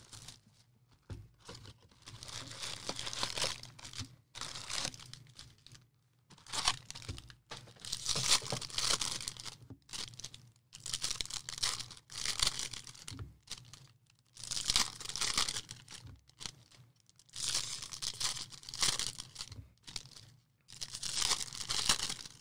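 Foil trading-card pack wrappers being torn open and crinkled by hand. The sound comes as a series of tearing, crinkling bursts, each a second or two long, with short pauses between them.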